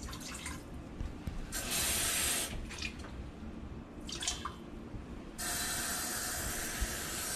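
Kitchen sink tap running twice, each time for about one to two seconds, as water fills a measuring cup. Between the two, about four seconds in, there is a short pour of water into the Instant Pot's stainless steel inner pot.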